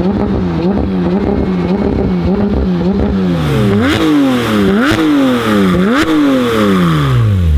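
Sports car engine revving: the engine note wavers up and down about twice a second, then from about halfway it rises sharply three times, falling away after each, the last time slowly and at length.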